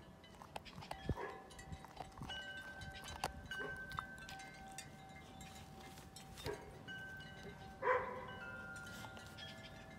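Wind chimes ringing, several held tones at different pitches overlapping. A black Labrador's chewing and tearing at a rag-strip rope toy adds scattered clicks and scuffs, with a few short louder sounds, the loudest about eight seconds in.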